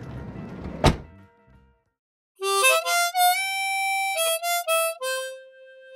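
A single sharp knock about a second in, then after a brief silence a solo melody starts about two and a half seconds in: held notes that slide between pitches, ending on a long steady note.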